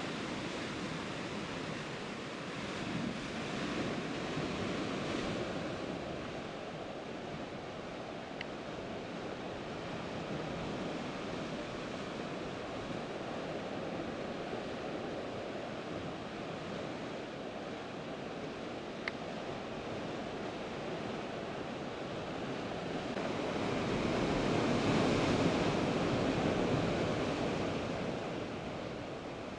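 Sea surf breaking and churning against rocks, a steady rushing wash that swells a little early on and rises to its loudest when a bigger wave surges near the end.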